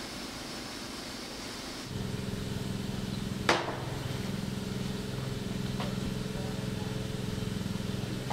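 Steady hissing noise that cuts about two seconds in to a steady, low machine hum. A sharp clank about a second and a half after the cut is the loudest sound, and a fainter one follows a couple of seconds later.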